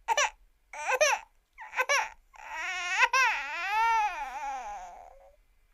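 Accordion imitating cartoon crying: three short sobbing notes about a second apart, then one long wavering wail that slides down in pitch and fades out.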